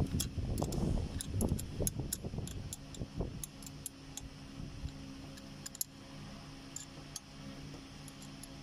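Scattered light metallic clicks and ticks of a screwdriver working against the bolts and plate of a car AC compressor clutch, with dull knocks in the first few seconds. A steady low hum sits underneath from a few seconds in.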